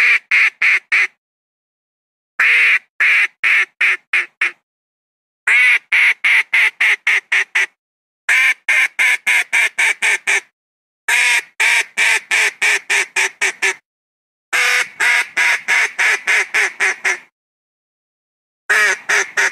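Philippine duck (Philippine mallard) quacking in repeated runs of rapid quacks. Each run holds about seven to twelve quacks over two to three seconds, with pauses of about a second between runs.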